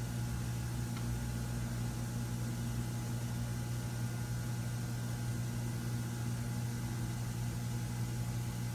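Steady low mechanical hum with an even hiss above it, unchanging throughout.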